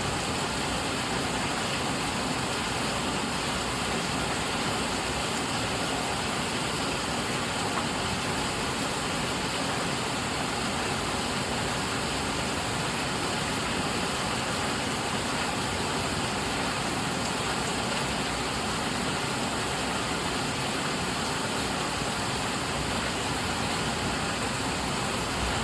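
Heavy rain falling on leaves: a steady, dense hiss with no breaks or single drops standing out.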